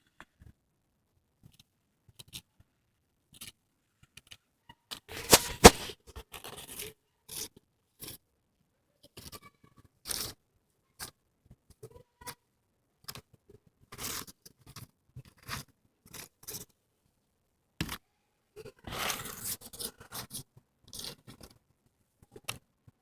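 A Jerusalem cricket (potato bug) making short, irregular scraping rasps by stridulating, rubbing its hind legs against its abdomen. The rasps come singly or in small clusters with quiet gaps between, the loudest about five to six seconds in.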